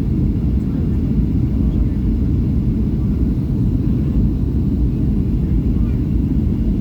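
Steady low rumble of a Boeing 757-200 in flight or on the ground, from its Rolls-Royce RB211 engines and airflow, heard from inside the passenger cabin.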